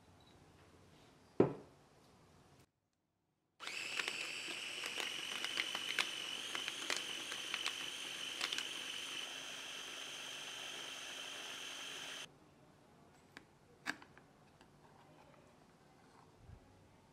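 Food processor running with white beans and olive oil, blending them into hummus: a steady motor whine with chunks clicking against the blade and bowl for about eight seconds, cutting off suddenly. A single sharp knock comes before it starts, and a faint click follows a little after it stops.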